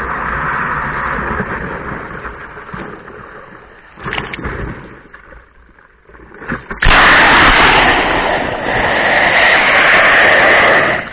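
Rushing wind and water noise on an action camera's microphone. It fades for a few seconds, then turns loud and harsh from about seven seconds in, and cuts off suddenly near the end.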